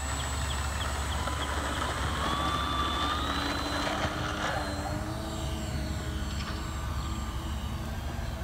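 Battery-powered RC airplane's electric motor and propeller whining as it takes off and flies away, the pitch climbing early, then slowly dropping as it gets farther off.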